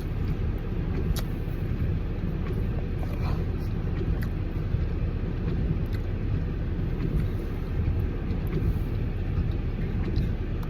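Steady low rumble of an idling car engine, with a few faint small clicks.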